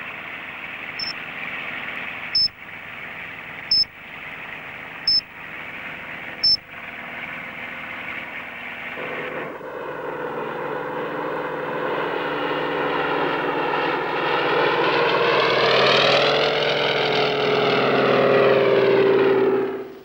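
Light aircraft engine droning, heard from inside the cabin, with a radio-tracking receiver's short high bleeps about every one and a half seconds, five times. About nine seconds in it changes to a single-engine high-wing light aircraft heard from outside, its engine growing louder as it approaches, the note rising and then falling as it passes.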